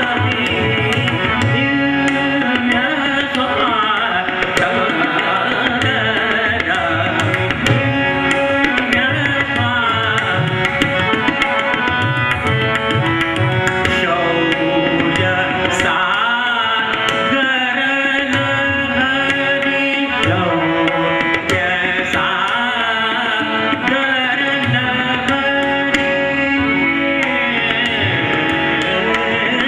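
Male vocalist singing a Marathi natya sangeet song in raag Malkauns, accompanied by tabla, harmonium and tanpura, with the tabla keeping a steady rhythm under the voice.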